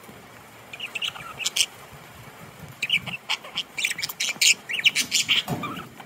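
Budgerigars chirping and squawking in short, sharp calls: a brief flurry about a second in, then a denser run of chattering calls from about three seconds in.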